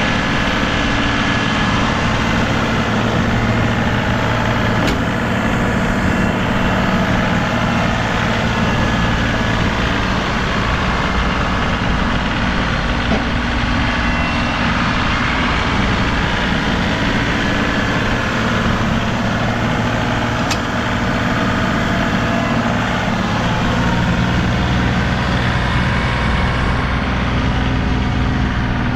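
Compact tractor engine running steadily at an even pitch, with no revving.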